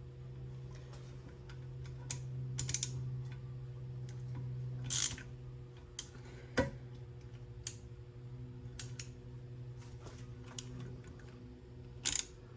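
Scattered light clicks and taps of small metal valve-train parts being handled on a big-block 454 cylinder head, with a short scrape about five seconds in and a sharper click a little later. A steady low hum runs underneath.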